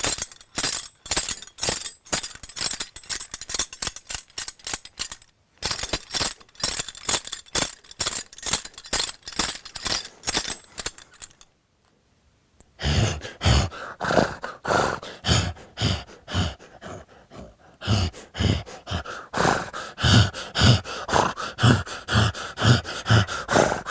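Foley horse sounds: about eleven seconds of fast, sharp clattering strokes of hooves and bridle tack, then after a brief pause a rhythmic run of low, voiced horse snorts and grunting breaths, about two a second.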